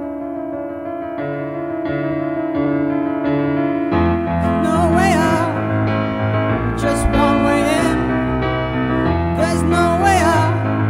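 Background music led by piano or keyboard playing sustained chords. About four seconds in a fuller arrangement begins, with a deeper bass and a wavering melody line above.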